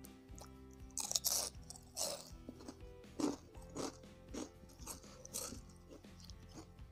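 Crunching bites into crispy-battered deep-fried Indonesian snacks (gorengan), followed by chewing with repeated smaller crunches; the loudest bites come about one and two seconds in. Background music plays underneath.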